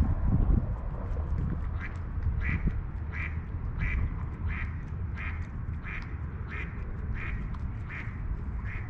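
A duck quacking over and over at an even pace, about three quacks every two seconds, starting about two seconds in. Under it runs a steady low rumble.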